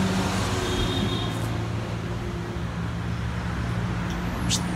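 Steady low mechanical hum over an even background noise.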